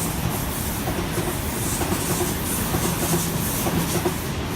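Sydney Trains Waratah (A set) electric train running past beneath the bridge: a steady rumble and hum with light, irregular clicking from the wheels on the rails.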